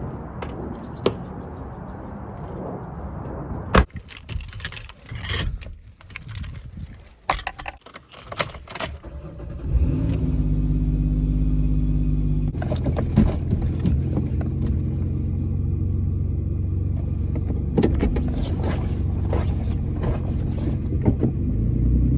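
Keys jangling with clicks and rustling, then a car engine starts about ten seconds in and keeps running with a steady low hum.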